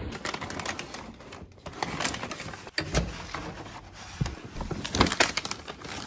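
Paper shopping bags rustling and crinkling as they are handled, with scattered sharp clicks and taps.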